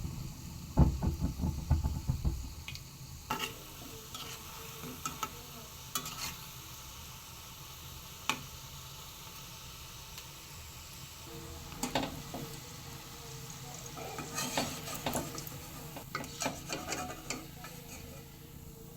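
Antasha pitha frying in hot oil with a steady sizzle, while a utensil scrapes and clinks against the pan. A cluster of knocks comes about a second in, and busier scraping from about the middle to near the end.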